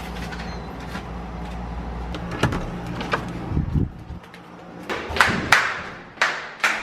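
Low steady hum of a car interior, which drops away about four seconds in. Sharp knocks and brief clattering handling noises follow, the loudest about five seconds in.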